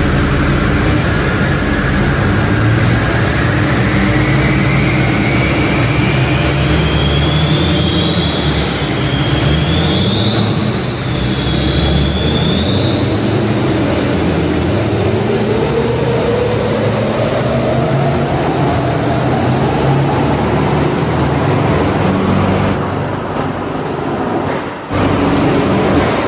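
Monstermax 2's twin Duramax diesel engines running hard while the truck, on blocks, spins its giant tires in the air to sling off mud. A driveline whine climbs steadily in pitch as the wheels speed up.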